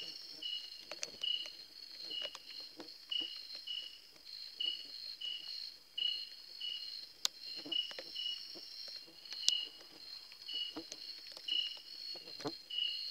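Night insects calling: a steady high-pitched drone, with a second insect's short high chirp repeating evenly about every two-thirds of a second. Scattered soft clicks and rustles sound underneath.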